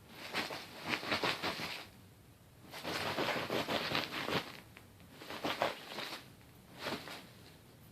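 Small dog, a rat terrier, scuffling and rustling against fabric in four bursts: two long ones of a second or more, then two short ones.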